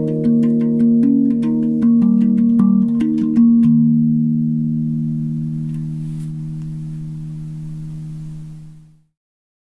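Idiopan Dominus steel tongue drum, tuned to the Amunet scale in E-flat, struck with bare fingers: a quick run of ringing notes for about three and a half seconds. Then the last notes are left to sustain and slowly die away, ending about nine seconds in.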